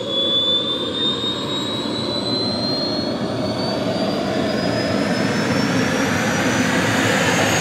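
Model jet turbine in a large radio-controlled SR-71 Blackbird spooling up during its start. A steadily rising whine sits over a rushing noise that slowly grows louder.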